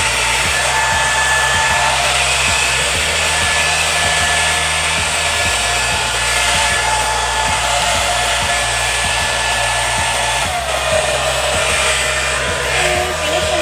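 Steady, loud whir of a small electric blower motor running without a break.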